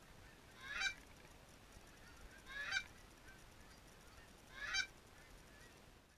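Geese honking: three separate honks, each rising sharply in pitch, about two seconds apart.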